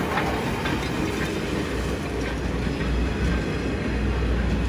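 SL Hitoyoshi train, hauled by 8620-class steam locomotive 58654 with a DE10 diesel, running through: a steady rumble with wheels clicking over the rail joints and a metallic clank-clank, which sounds like something knocking. There is no strong exhaust beat, and the watcher wonders whether the DE10 is doing the pushing while the 8620 only makes smoke.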